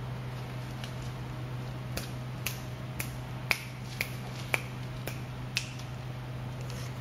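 A run of sharp, short clicks, about two a second, starting about two seconds in and stopping about a second before the end, over a low steady hum.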